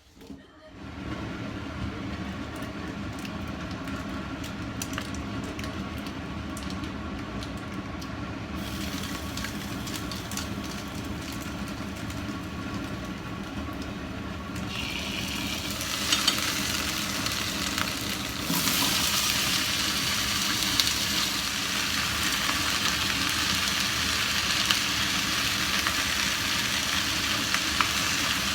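Curry ingredients sizzling and crackling as they fry in a pan. The sizzle gets louder in steps, about a third of the way in, around the middle and again a little later, over a steady low hum.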